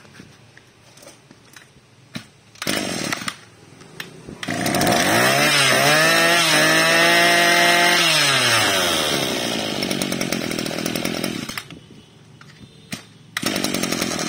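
Maruyama BIGM KC26NX two-stroke brush-cutter engine being pull-started. A brief burst comes a few seconds in, then it catches and is revved up, the pitch climbing, holding and falling back to a steadier run. It stops near twelve seconds and starts again on another pull near the end.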